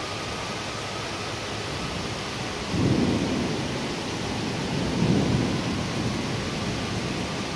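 Heavy rain falling steadily. A rumble of thunder breaks in suddenly about three seconds in, swells again a couple of seconds later, then fades back into the rain.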